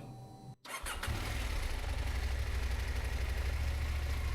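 Motorcycle engine idling steadily, coming in just under a second in after a brief dropout.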